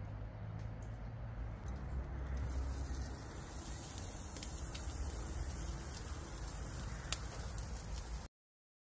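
Tomahawk steak sizzling on a cast-iron grate directly over hot charcoal, a steady hiss with a low rumble underneath; the sizzle grows brighter about two and a half seconds in and the sound cuts off abruptly near the end.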